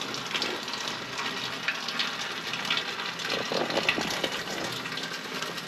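Rain falling: a steady hiss dotted with many small, irregular drop ticks.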